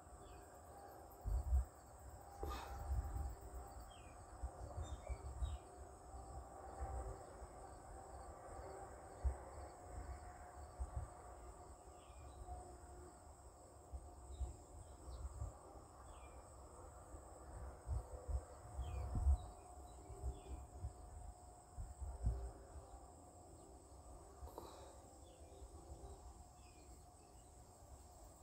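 Outdoor morning ambience: insects trilling steadily at a high pitch, with short bird chirps scattered through it. Low thumps and bumps of handling noise on the phone's microphone come and go throughout.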